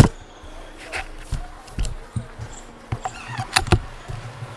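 Precihole NX100 nitro piston air rifle being cocked and handled: a sharp click at the start, then a string of scattered clicks and knocks.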